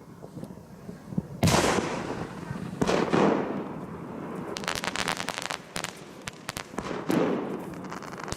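Firework explosions: two loud bangs with long rolling echoes about a second and a half apart, then a rapid crackle of many small sharp pops, then another bang with an echo near the end.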